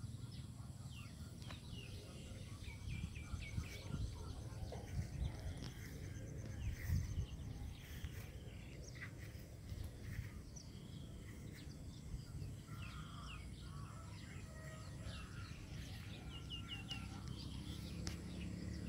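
Several birds chirping and calling in short, often repeated notes, over a steady low rumble. A fast, faint high ticking runs through the first half.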